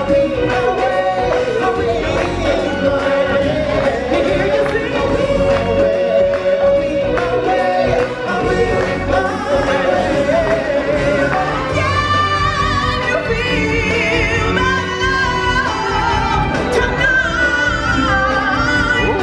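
Live stage-show music with singing: a singer holds long notes over choir and backing music, and the melody moves higher about twelve seconds in.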